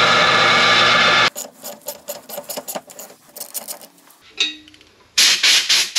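Electric metal-cutting saw running, its motor stopping about a second in. A run of light, irregular metal clicks and ticks follows as a tap is worked by hand in a vise, then short hissing bursts near the end.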